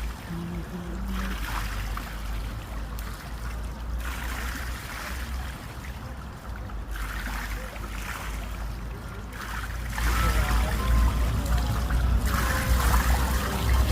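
Wind buffeting the microphone in a low rumble, getting louder about ten seconds in, over lakeside water lapping and trickling.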